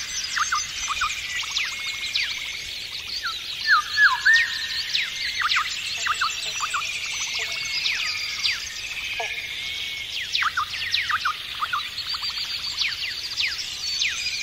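A dense chorus of many birds chirping and whistling, with short rising and falling whistled notes over a constant high twittering; a louder burst of calls stands out about four seconds in.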